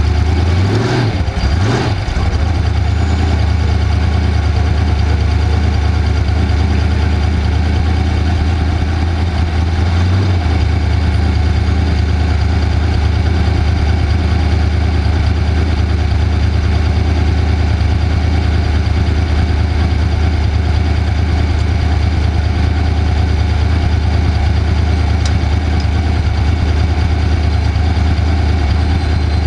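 Off-road race vehicle's engine running at a steady pitch, with brief pitch changes in the first two seconds and a change in the low note about ten seconds in.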